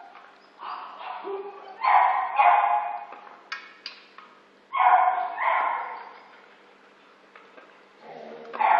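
A dog barking in short runs of loud, high barks every few seconds, with two sharp clicks a little after three seconds in.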